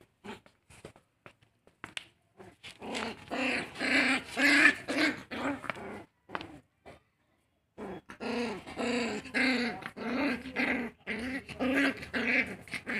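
Two puppies play-fighting, growling at each other in two long bouts: the first from about three to six seconds in, the second from about eight seconds on, with a quiet gap between and only a few short sounds in the first two seconds.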